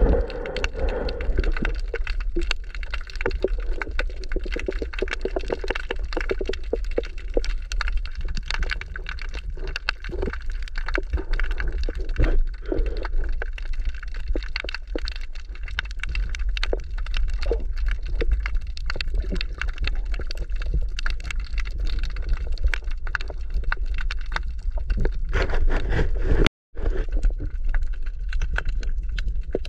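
Underwater ambience heard through a submerged camera: a steady low rumble with dense, irregular crackling clicks throughout. The sound cuts out for a moment near the end.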